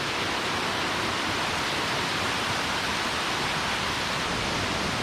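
Waterfall close by: a steady, even rush of falling water.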